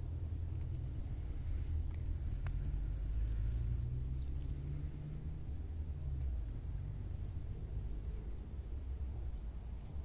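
Small birds calling with high, thin chirps and short buzzy trills, some chirps falling quickly in pitch, over a steady low rumble.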